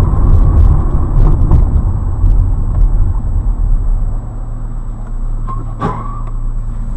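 Low engine and road rumble heard from inside a car, heavy for the first few seconds and then easing as the car slows to a stop behind a truck, with a few light clicks and rattles.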